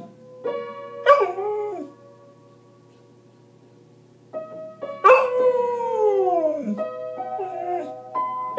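Samoyed dog howling along with music of steady held notes: a short howl about a second in, then after a quiet pause a long howl from about five seconds in whose pitch slides down.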